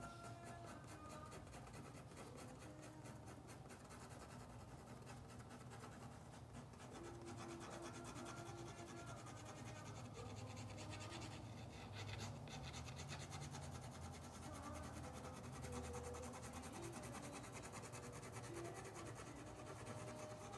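Faint, steady scratching and rubbing of a paintbrush or pen on paper during gouache painting.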